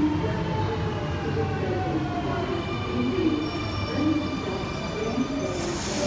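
Sydney Trains Millennium (M-set) double-deck electric train braking into an underground platform: its traction motor whine falls steadily in pitch as it slows, over a rumble of wheels. A loud hiss sets in near the end as it comes to a stop.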